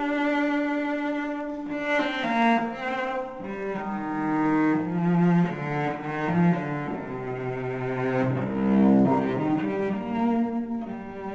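Slow background music of long held notes that move from pitch to pitch every second or so.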